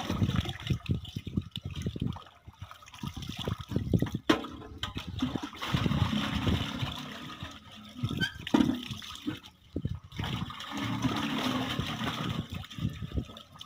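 Galvanised metal bucket dipped into a concrete water tank and filled, with water gurgling and splashing into it in uneven surges. Near the end, water pours from the tipped bucket back into the tank.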